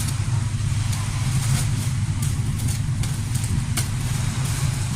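Strong wind blowing across the microphone: a steady low rumble under an even hiss, with a few faint ticks.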